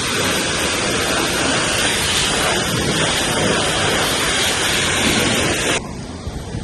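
A loud, steady rushing hiss that cuts off abruptly near the end.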